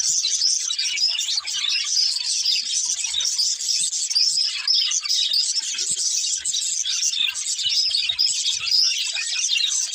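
Budgerigars (parakeets) chirping and warbling nonstop, several birds at once in a busy chatter.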